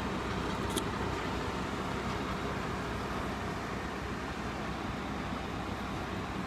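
Fire engines' diesel engines idling on the street, a steady low running sound under an even hiss.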